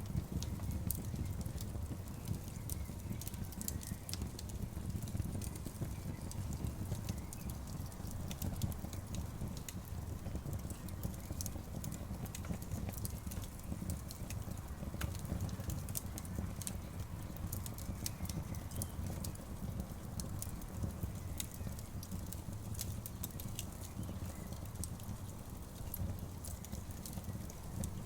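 Wood campfire burning, with frequent sharp crackles and pops over a steady low rumble.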